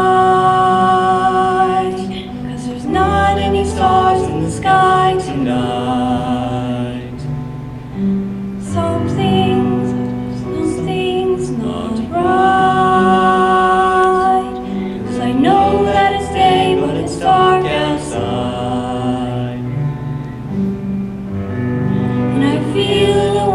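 A song: a singing voice holding long notes over instrumental backing.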